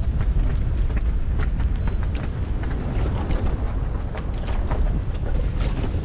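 Strong gusting wind buffeting the microphone on an open boat on choppy water: a loud, steady low rumble with many short gusty flutters over it.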